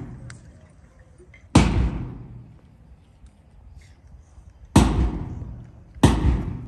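A drum struck three times at uneven intervals, each a loud booming beat that rings out and dies away over about a second, keeping time for a march past.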